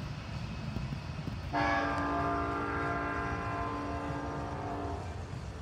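Train horn sounding one long blast of several notes at once, starting suddenly about one and a half seconds in and lasting about three and a half seconds, over a low steady rumble.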